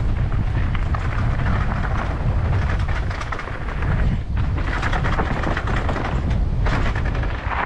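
Dirt bike engine ridden hard along a dirt trail, its revs surging and easing, under a heavy wind rumble on the microphone.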